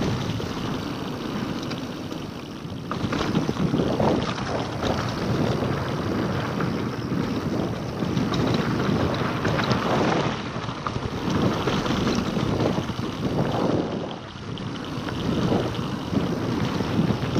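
Wind buffeting a GoPro microphone while a Scott Genius LT 710 Plus mountain bike is ridden on a dirt trail. Tyre rumble runs under it, with many small clicks and knocks from the bike and the ground.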